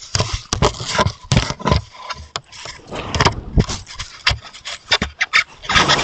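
Roosevelt elk rubbing against a trail camera: irregular scraping and knocking of its body against the camera housing.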